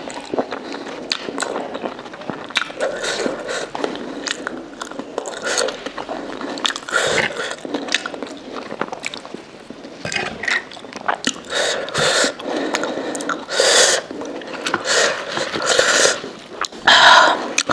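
Close-up mukbang eating sounds: chewing and wet mouth sounds while eating jhol momo, dumplings in spicy soup, with a spoon scraping the bowl. The sounds come in short, irregular clicks and bursts.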